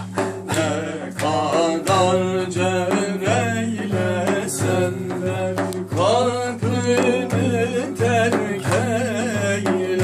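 Turkish Sufi hymn (ilahi) music: a voice sings a wavering, ornamented melody over a steady drum beat.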